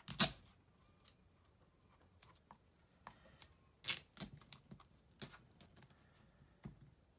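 Scattered small clicks and rustles of objects being handled, most likely while searching for a roll of tape. A sharp click about a quarter second in is the loudest, and a few fainter knocks come in the second half.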